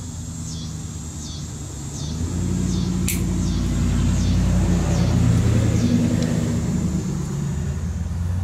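A motor vehicle's engine running nearby: a low rumble that grows louder about two seconds in. A single sharp click comes about three seconds in.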